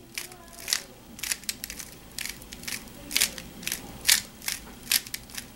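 Aolong v2 3x3 speedcube being turned through a Y-perm algorithm: a quick, irregular run of sharp plastic clicks and clacks as the layers snap round, about two to three turns a second.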